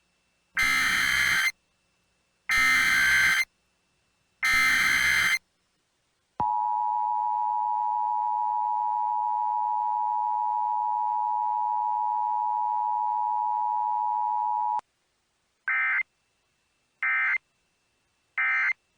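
Emergency Alert System tones: three one-second screeching SAME data bursts, then the steady two-tone EAS attention signal (853 and 960 Hz) held for about eight seconds, then three short data bursts.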